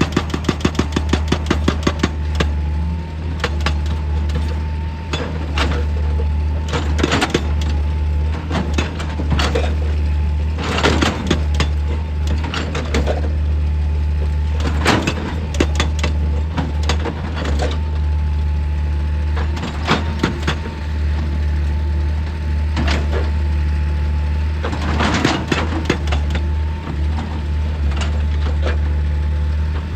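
Excavator's diesel engine running steadily with a low hum, overlaid by irregular bursts of cracks and knocks as rock breaks and clatters.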